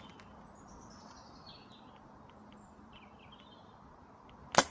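A songbird sings a falling run of short high notes. Near the end comes one sharp, loud crack: a JUNIXNG M109EA compound bow loosing an arrow.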